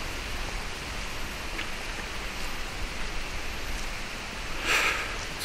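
Steady hiss of running water, with a short rustle near the end.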